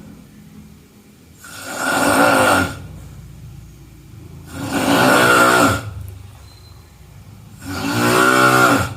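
A person snoring: three loud snores about three seconds apart, each lasting about a second and a half, with quiet breathing between.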